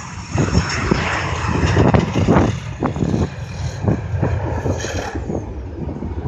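Regional jet's twin rear-mounted jet engines at takeoff power as it lifts off and climbs away, a steady broad roar. Irregular gusts of wind buffet the microphone throughout.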